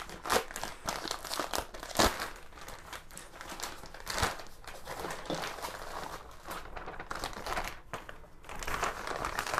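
Red plastic mailer bag crinkling and rustling as it is opened and handled, with sharper crackles about two and four seconds in.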